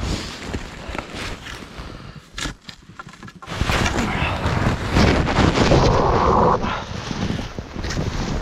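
Deep snow crunching and clothing and gear rustling as a fallen skier struggles to get back up, with scattered knocks. The noise grows louder and denser about three and a half seconds in.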